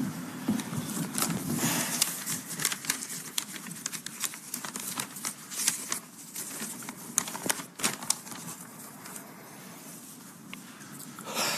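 Sheets of paper rustling and crackling as notes are handled on a lectern, picked up close by its microphone, with many scattered sharp clicks.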